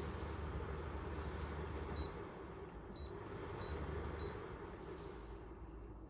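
Koizumi KAW-1682 window air conditioner running, a steady whoosh of fan air over a low hum, with four short high beeps partway through. The rushing air thins out in the last second or so.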